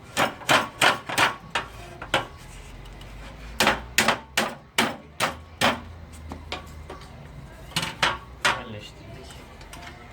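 A hammer tapping the top profile of a pleated fly-screen frame into place: quick strikes in three bursts, about fifteen in all, with pauses between.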